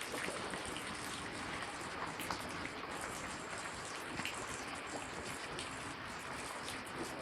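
Steady wash of water noise, dotted with many small drips and splashes.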